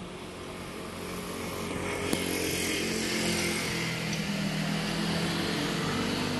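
A motor vehicle's engine running, growing louder over the first two seconds or so and then holding steady, with an engine hum and road hiss. A single sharp click about two seconds in.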